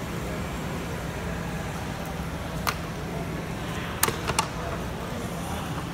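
Steady background hum of street traffic, with three short sharp taps: one about two and a half seconds in and two close together about four seconds in.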